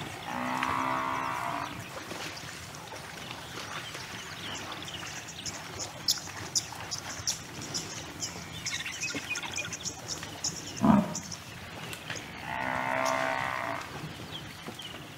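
A bison calling twice with long, deep lowing grunts, one at the start and one near the end. Between the calls are faint chirps and ticks, and a short thump comes about eleven seconds in.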